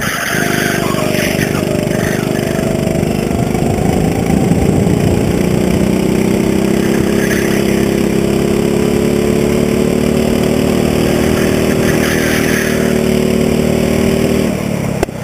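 Go-kart engine running at full throttle, its pitch climbing slowly as the kart gathers speed along a straight, then dropping near the end as the throttle is lifted.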